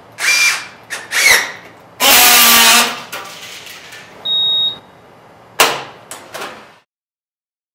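Signode BXT2 battery-powered strapping tool tensioning and welding a plastic strap. It makes short bursts of motor whir, a loud buzz lasting under a second, a single short high beep, then a few sharp clacks near the end.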